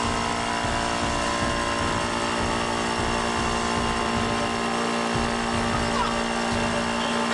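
Electric vacuum pump running steadily: a constant motor hum with an even buzz, drawing the air out of a bell jar.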